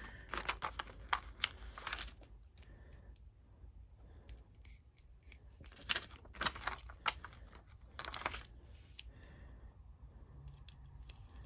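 Paper sticker labels being peeled from their backing sheet and pressed onto small plastic storage containers: light crackling, tearing and clicking in three bunches, during the first two seconds, about six seconds in and about eight seconds in.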